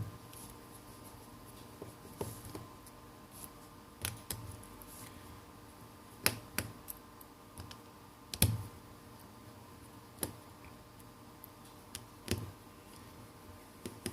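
Small sharp clicks and taps, about a dozen at irregular intervals, of a small screwdriver and tiny screws being worked out of a Samsung Galaxy Note 3's back housing.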